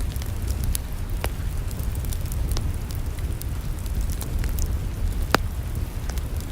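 Wood fire in a fireplace crackling, with scattered sharp pops, the loudest one about five seconds in, over a steady low rumble.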